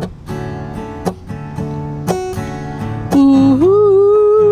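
Acoustic guitar strummed in a steady chord rhythm, with a strong stroke about once a second and lighter strums between. About three seconds in, a woman's voice comes in with a wordless sung note that starts low, slides up and is held with vibrato.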